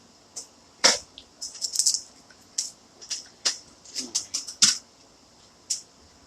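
Irregular sharp clicks and short scratchy rattles of small hard laptop parts and tools being handled during a CPU swap, loudest about a second in and just before five seconds.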